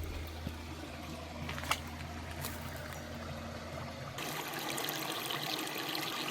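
Water trickling and running steadily into a stone lavoir basin, with a low steady hum underneath. About four seconds in, the hum drops away and the water sound becomes brighter and fuller.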